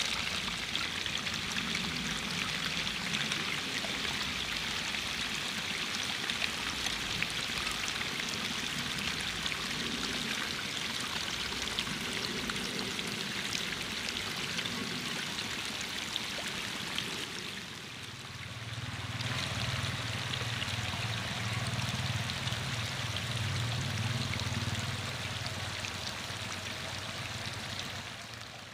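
A dense swarm of magur catfish fry churning the water surface as they feed, a steady fine splashing made of countless tiny splashes. A low steady hum joins in about two-thirds of the way through.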